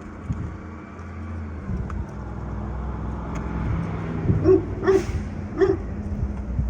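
A dog barking three times in quick succession about two-thirds of the way in, over a steady low rumble.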